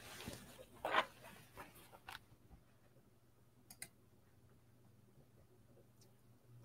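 Quiet room with soft rustling during the first two seconds, loudest about a second in, then a few faint clicks at a computer desk.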